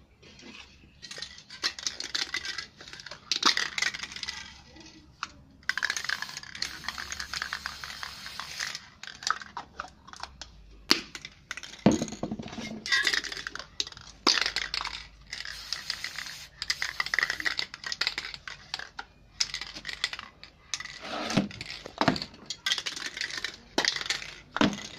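Aerosol spray paint cans hissing in repeated bursts, each lasting a second or several, with sharp knocks and clicks as cans are put down and picked up between bursts.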